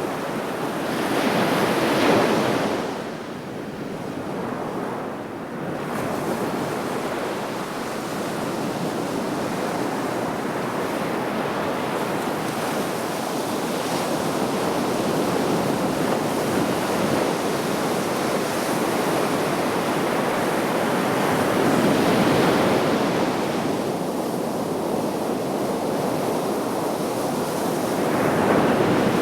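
Black Sea waves breaking on the shore, a continuous wash of surf. Louder surges come about two seconds in, around twenty-two seconds in and again near the end, with some wind on the microphone.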